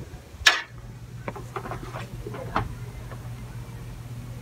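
One sharp clack about half a second in, then scattered light clicks and taps, over a steady low hum.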